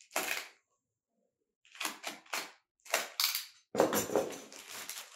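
Plastic packaging being cut and torn open by hand: short, sharp crinkling rips, a brief one early, then a few in quick succession, and a longer stretch of rustling and tearing in the last second or so.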